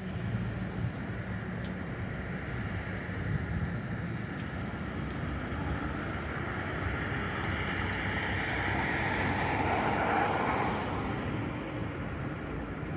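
NGT8D low-floor articulated tram with three-phase AC drive running past, a steady rolling and drive noise with low rumble, mixed with road traffic; the noise swells to its loudest about ten seconds in, then eases off.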